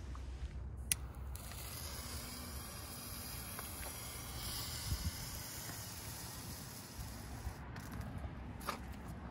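Veline blue firework star composition burning with a steady hiss for about six seconds, then dying away as it burns out. A sharp click comes just before the hiss starts.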